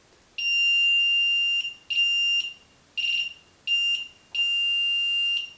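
Handheld RF signal detector beeping as it picks up radio signals: a high, steady electronic tone in five uneven beeps, the longest about a second.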